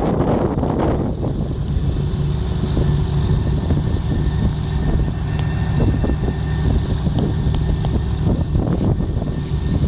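Wind buffeting the microphone with a heavy, fluttering low rumble. A faint steady high tone sits under it for a few seconds in the middle.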